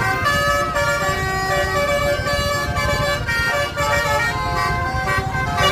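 Bus 'telolet basuri' multi-trumpet air horn playing a tune of stepped notes, over a steady low rumble of the bus engine and road noise.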